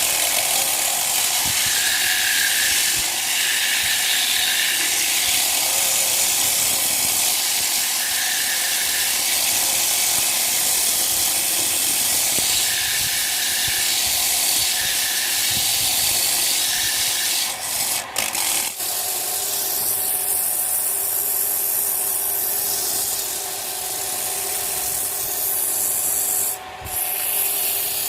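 Wood lathe spinning a piece of tree branch while it is worked against an abrasive or cutting tool: a steady rubbing, rasping hiss that breaks off briefly about two-thirds of the way through and again near the end.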